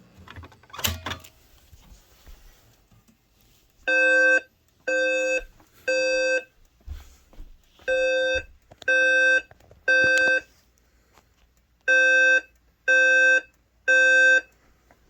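A fire alarm pull station clacks as it is pulled. Then a Notifier voice evacuation system sounds its temporal-three (Code 3) alert tone through System Sensor SPSW speaker strobes: three short beeps, repeated three times with a pause between groups. It is the alert that comes before the spoken evacuation message.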